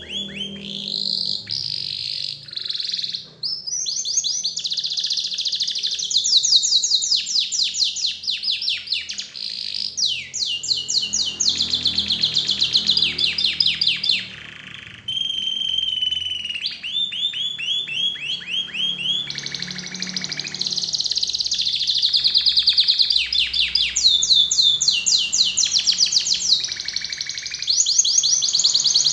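Domestic canary singing a long, continuous song of fast rolling trills, with a brief break about halfway through.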